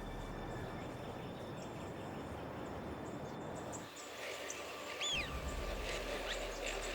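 Outdoor natural ambience, a steady hiss of background noise, with a small bird giving a couple of short, high chirps about five seconds in.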